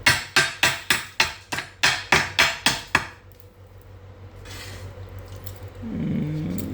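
About a dozen quick hammer strikes on steel, roughly four a second, each ringing briefly, typical of knocking the ceramic ferrule off a freshly stud-welded 12 mm stud.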